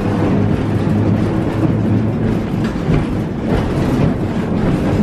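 1904 Brill electric streetcar running on its track, heard from inside the wooden car: a steady rumble with a low hum that fades out partway through, and a few sharp clicks from the wheels and body near the middle.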